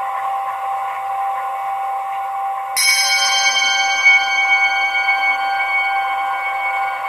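Ambient soundscape music: a steady hissing drone with one held tone, and about three seconds in a single church-bell strike that rings on with many high overtones, slowly fading.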